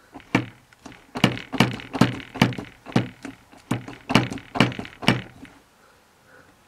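A center punch struck with a hammer, about a dozen sharp taps at two to three a second that stop about five seconds in, marking a bolt-hole position on the casting.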